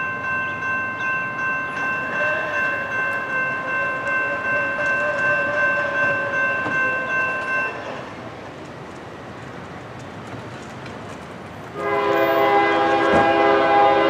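A railroad crossing bell ringing in quick, even strokes, which stops about eight seconds in. Near the end, the horn of the approaching GE ES40DC locomotive sounds one loud blast lasting a couple of seconds.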